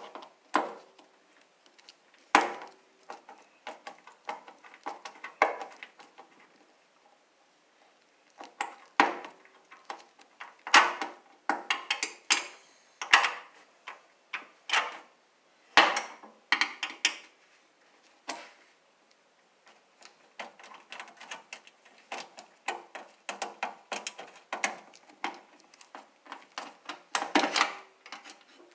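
Hand tools and metal parts of a Craftsman table saw clinking and knocking during disassembly: uneven runs of sharp metallic clicks with short pauses between them.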